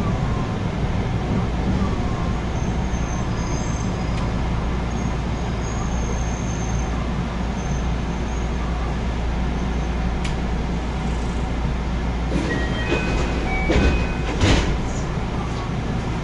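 Cabin sound of a JR West 221 series electric train running: a steady low rumble of wheels on rail, with faint high-pitched wheel squeals in the first half. A cluster of sharp clicks and knocks comes about twelve to fifteen seconds in, the loudest near the end of that cluster.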